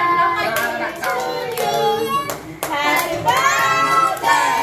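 Voices, a child's among them, singing a birthday song together, with hands clapping along.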